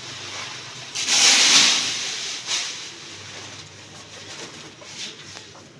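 A sack being rustled and shaken over a metal tin: one loud rush lasting about a second, about a second in, a shorter one soon after, then lighter rustling and a few faint taps.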